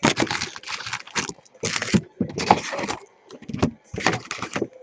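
Trading-card pack wrappers crinkling and tearing as packs are opened and the cards are handled, in quick irregular rustling bursts.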